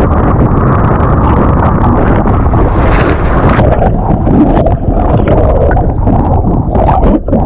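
Heavy wind buffeting an action camera's microphone during wing foiling, with irregular knocks and water noise from the board on the lake.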